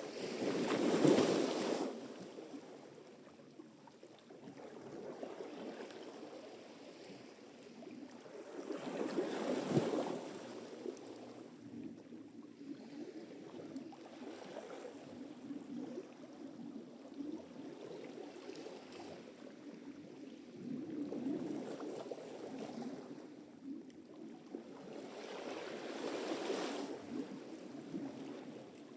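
Ocean surf: waves breaking and washing up the shore, with the louder breaks coming every several seconds over a steady wash. The first break, about a second in, is the loudest.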